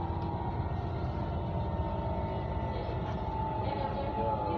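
Copenhagen Metro driverless train (AnsaldoBreda) running along the track, heard inside the car: a steady low rumble with a constant whine from the drive.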